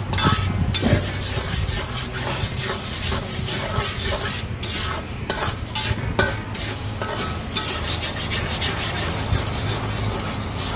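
A metal spatula scraping and stirring in a metal kadai, in repeated irregular strokes over a steady hiss of spice paste cooking down with a little water.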